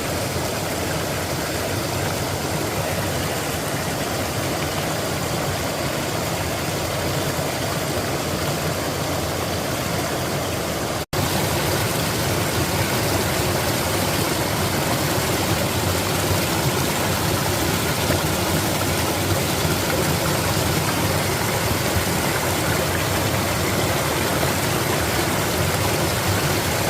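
Steady rush of flowing water. There is a brief break about eleven seconds in, after which it runs a little louder.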